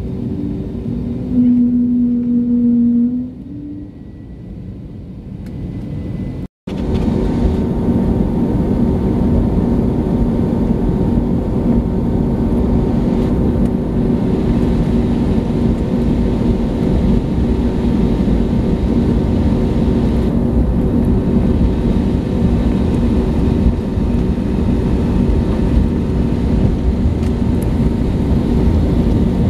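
Steady engine drone and rumble inside the cabin of an Airbus A320neo taxiing at low thrust. A short held hum comes about two seconds in, and the sound cuts out for a moment near seven seconds.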